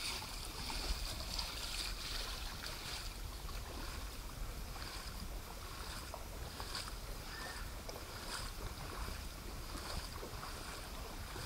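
People wading on foot through ankle-deep floodwater on a street: irregular splashing and sloshing of water around their feet and legs, a splash every second or so.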